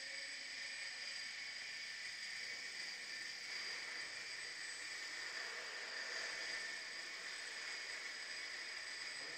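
Steady background hiss with a few faint, steady high tones, and no distinct events.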